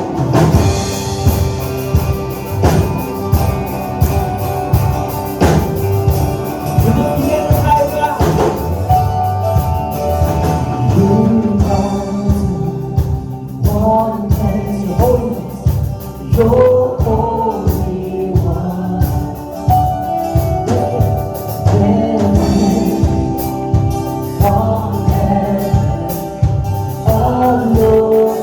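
Live worship band playing with a lead singer and the congregation singing along, over a steady bass-and-drum beat.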